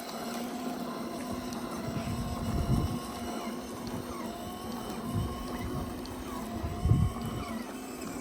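A steady mechanical hum under a noisy bed, with irregular low gusts of wind buffeting the microphone; the loudest gust comes about seven seconds in.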